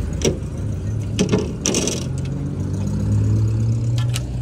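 A car engine idling steadily, a little stronger around three seconds in, with a few short knocks and clicks over it.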